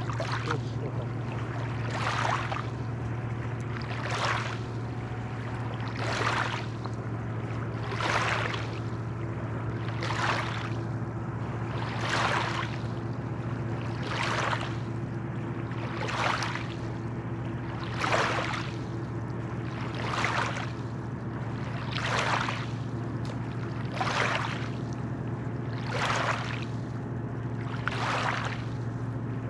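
Small waves lapping onto a pebbly riverbank, one wash about every two seconds, over a steady low hum.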